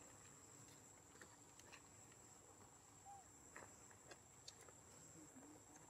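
Near silence: a faint, steady high-pitched insect drone like crickets, with a few scattered faint ticks and a couple of soft chirps.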